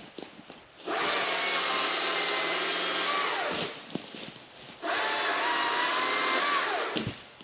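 Stihl MSA 220 battery chainsaw running in two bursts of about three and two seconds. Each ends with a falling whine as the trigger is released and the motor and chain spin down.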